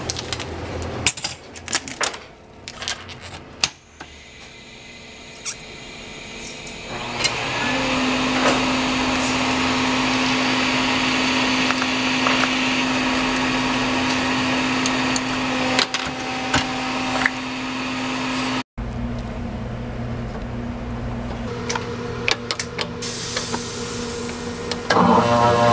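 Clicks and knocks of a lens and metal fixtures being handled. About seven seconds in, a lens-processing machine starts and runs with a steady hum and hiss. After a break, a second machine hums more quietly.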